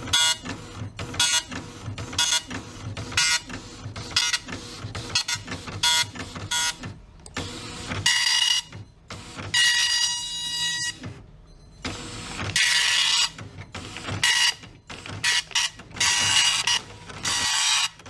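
Panasonic KX-P1121 24-pin dot matrix printer printing a Windows test page, the print head rasping across the paper in stop-start passes. The passes are short and quick at first, then from about eight seconds in they run longer, about a second each, with a steady whine in them.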